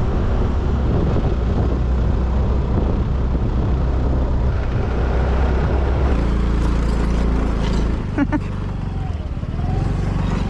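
Yamaha scooter engine running while riding, with a steady hum under road and wind noise. About six seconds in it changes to a steadier, even idle as the scooter stands at the roadside.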